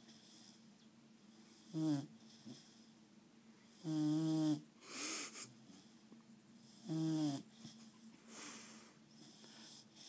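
A sleeping dog snoring: three short, pitched snores at about two, four and seven seconds in, the middle one the longest, with softer breathy puffs of air between them.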